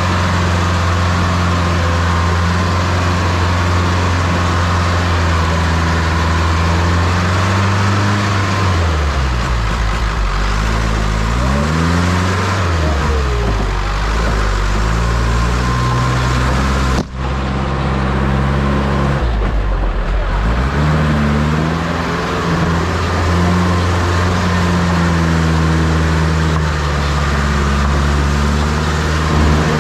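Motor vehicle's engine running steadily, its pitch falling and climbing again twice, as with slowing and speeding up or gear changes, with a brief break in the sound about halfway through.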